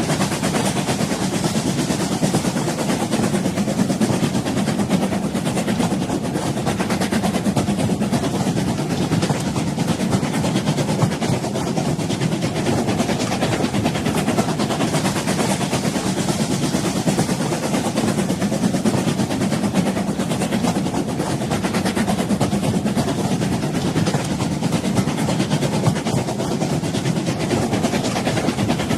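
Old train running with a steady, unbroken rumble.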